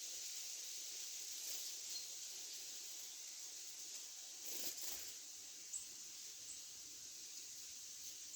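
Faint steady outdoor hiss of city-balcony ambience, with a brief rustle a little before halfway and a couple of small clicks just after it.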